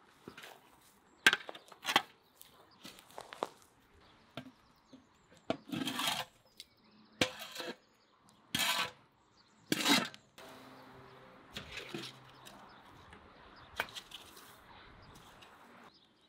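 Metal shovels scraping and knocking as coals and ash are cleared from around upturned metal buckets. A string of sharp knocks is broken by several short scrapes about half a second long.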